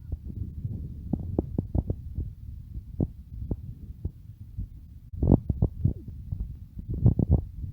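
Low rumbling noise on the recording device's microphone, with many irregular knocks and clicks, bunched in a few clusters, typical of the device being handled or carried.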